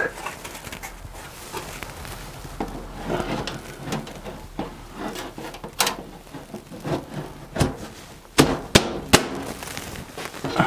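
Handling noises from a mid-tower PC case: scattered clicks, taps and knocks, with a cluster of sharper knocks about eight to nine seconds in.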